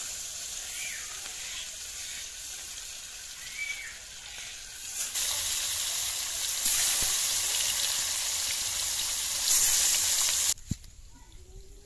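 Turmeric-coated Japani puti fish pieces sizzling in hot oil in an iron kadai. The sizzle grows louder about five seconds in, with the fish in the oil, and cuts off suddenly near the end.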